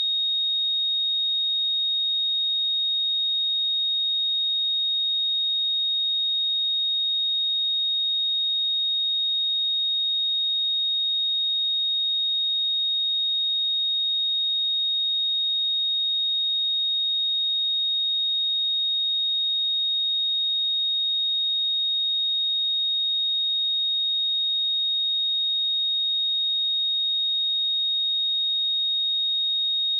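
Pure 3733 Hz sine-wave test tone, a single steady high-pitched tone held at constant level.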